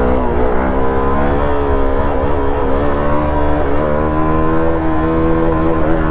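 Hero XPulse 200 4V's single-cylinder engine held at fairly steady revs, its pitch wavering slightly up and down.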